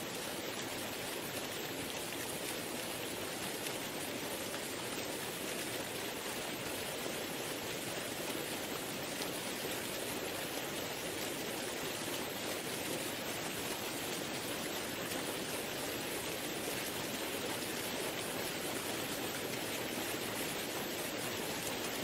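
Waterfalls pouring into a river and the river running over rocky rapids: a steady, unbroken rush of water.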